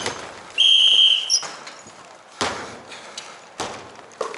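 A referee's whistle blown once, a flat shrill blast of under a second about half a second in, signalling a stoppage in play; later, two sharp thumps of a basketball bouncing on the hardwood gym floor.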